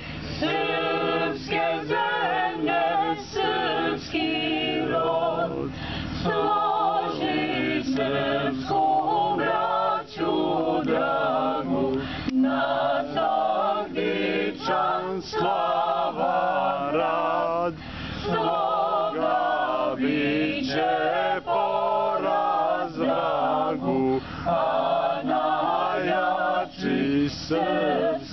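Mixed choir of women's and men's voices singing a cappella, a continuous sung line with only short breath pauses.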